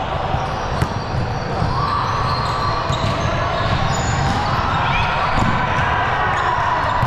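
Volleyballs bouncing and being struck on a gym floor, a dense run of thuds and knocks, with voices in the background.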